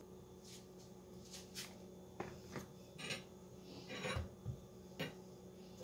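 Faint handling sounds as the plastic cup of a small personal blender is lifted and twisted off its motor base: a few light plastic clicks and rubs, with a soft low thump a little after four seconds in.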